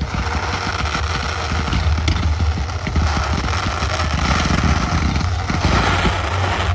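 Fireworks crackling: a dense, continuous run of rapid pops over a low rumble.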